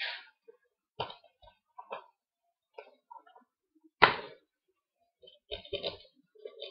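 Plastic Blu-ray case being handled and snapped open: a run of short clicks and knocks about a second apart, the sharpest one about four seconds in, with a cluster of small rattles near the end.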